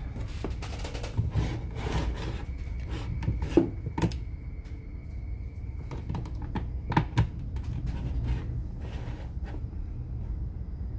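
Plastic steam iron being handled and turned over on a table: a few light knocks and clicks of its housing, with rubbing of hands on the plastic, over a steady low hum.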